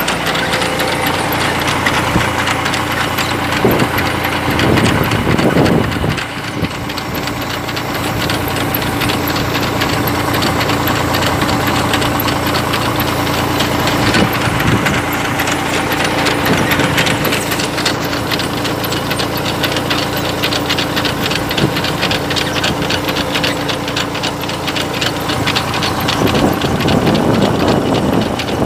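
Tractor engine running steadily, with a fast continuous rattle from a tractor-drawn potato harvester at work.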